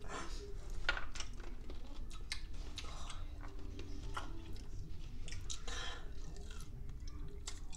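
Two people chewing whole kumquats, peel and all: irregular small clicks and smacks of mouths.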